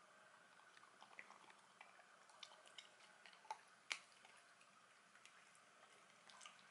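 Faint, scattered clicks of a dachshund chewing its food, with one sharper click about four seconds in.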